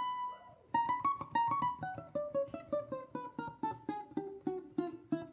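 Ten-string bandolim playing a fast run of short plucked notes after a brief pause, the melody stepping downward, with a lower plucked line beneath.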